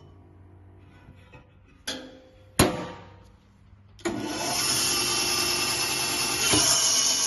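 Bizerba FK 23 meat bandsaw, quiet and stopped, with a small click and then one sharp knock. About four seconds in the saw is switched on at its start button and its motor and band blade start suddenly and run steadily, with a high hiss.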